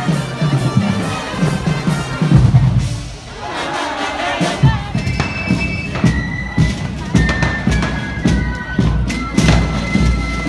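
Procession band music with drumming, with sharp bangs and thuds through it and held high notes from about halfway in.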